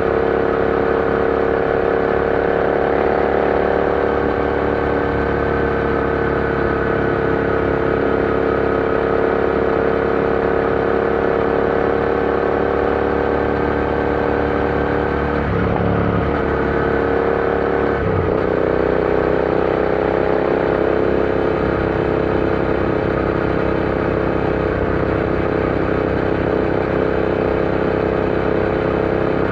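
Royal Enfield Interceptor 650's parallel-twin engine running steadily under way. About halfway through, its sound briefly breaks off and changes, then settles at a slightly different, steady pitch.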